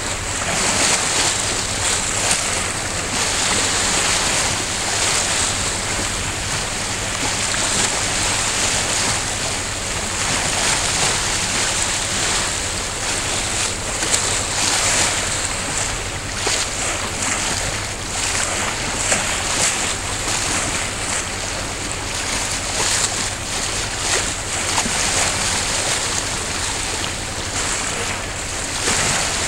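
Choppy sea water washing and splashing around a small boat in a tide rip where two tidal currents collide, with wind on the microphone: a steady hiss with a low hum underneath.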